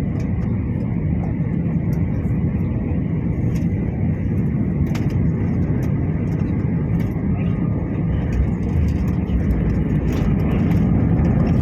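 Steady low rumble of an airliner heard from inside the passenger cabin, with faint scattered ticks and rattles, swelling slightly near the end.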